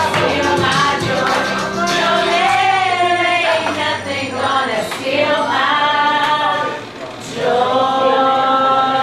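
A small group of women singing a worship song together, with a low held accompaniment tone under the first couple of seconds. The singing breaks briefly between phrases about seven seconds in.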